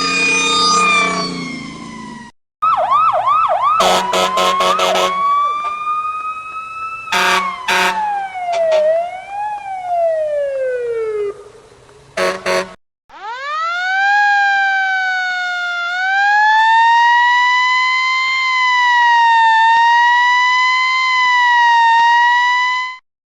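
A string of fire truck siren sounds separated by abrupt cuts: a steady two-tone siren, fast whooping yelps with short horn blasts, a siren gliding down in a zigzag, then a long wailing siren that rises and slowly wavers up and down near the end.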